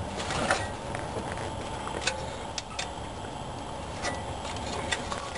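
Baling wire and hands working into an engine's spark plug hole: a few light, scattered clicks and scrapes of wire against metal, over a steady background hum.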